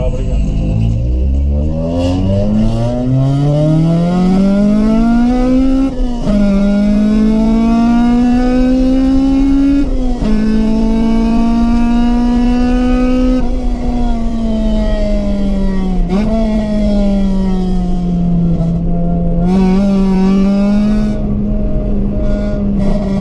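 Honda CRX's B16A1 1.6-litre DOHC VTEC four-cylinder engine pulling hard through the gears, the revs climbing steeply with quick upshifts about six and ten seconds in. After that it holds high revs, eases off and picks up again near the end.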